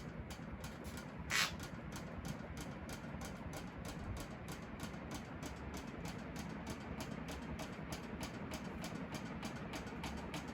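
Kichler Todo industrial-style ceiling fan running steadily: a low motor hum and rush of air with an even pulsing about four times a second. A brief sharp hiss stands out about a second and a half in.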